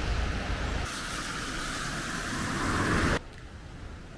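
Steady rush of a fast, rocky river running over stones. About three seconds in it cuts off to a much quieter, low outdoor hum.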